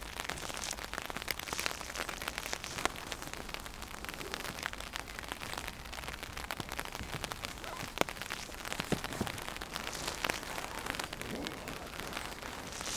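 Rain pattering on a taut hammock tarp overhead: a dense, irregular rattle of drops, with a few louder single drops about 3 and 8 seconds in.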